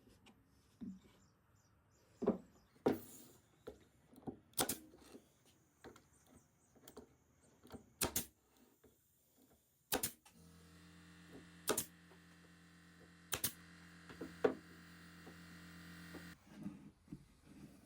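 A series of separate sharp clicks and knocks of hard objects being handled, and a steady electric motor hum that starts about ten seconds in and stops about six seconds later.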